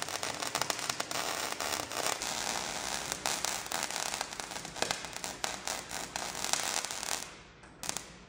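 MIG welder arc crackling steadily while a bead is laid. It cuts out about seven seconds in, with one brief burst just before the end.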